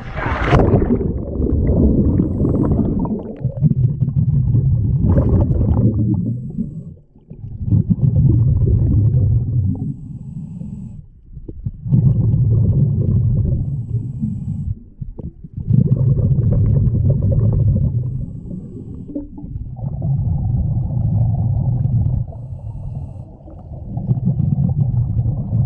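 Low, muffled underwater rumble of moving water picked up by a submerged camera, swelling and easing in surges every few seconds.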